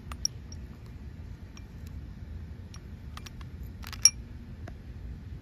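A beaded strand of glass and metal beads clinking against a clear glass bowl as it is set into it: a few light clicks, then a short cluster of sharper glassy chinks about four seconds in, the loudest of them ringing briefly.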